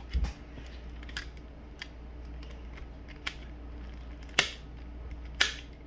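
Plastic fidget ball clicking as its coloured pieces are twisted and pushed back into place: a scatter of sharp clicks, the loudest about four and a half and five and a half seconds in.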